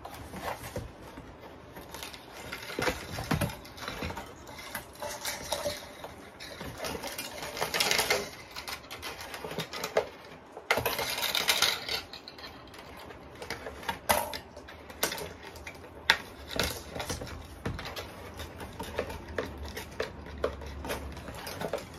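Hands handling a string of battery-operated lights and a foam-board box: irregular clicks, taps and rustling as the light wire is threaded through a small hole.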